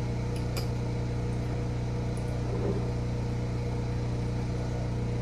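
Backup generator's engine running steadily, a constant low hum, keeping the house powered through the outage. About half a second in, a metal spoon clinks faintly twice against a glass jar.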